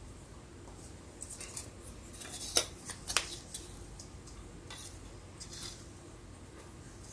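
Scattered light clicks and taps of small hard objects being handled, the two loudest about two and a half and three seconds in.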